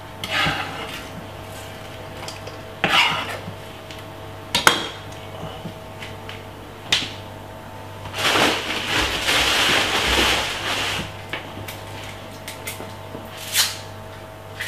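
Kitchen clatter: a few separate knocks and clinks of a knife against a wooden chopping board and a stainless steel bowl as chopped spring onion is moved into the bowl. About eight seconds in there is a rustling, hissing noise lasting about three seconds.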